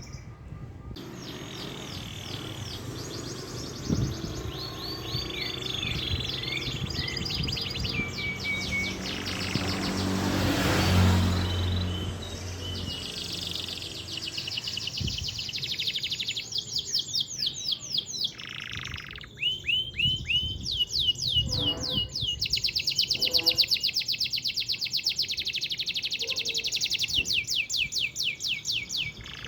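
Domestic canary singing long rolling trills: fast runs of the same short note repeated many times, changing to a new trill every few seconds. About ten to twelve seconds in, a low rumble swells and fades beneath the song.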